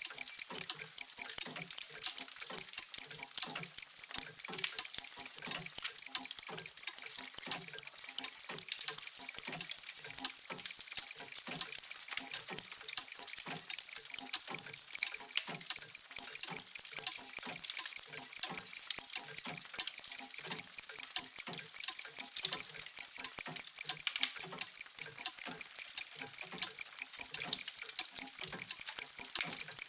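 Many mechanical clocks ticking at once, out of step, making a steady, dense clatter of sharp ticks with lower, heavier knocks repeating underneath.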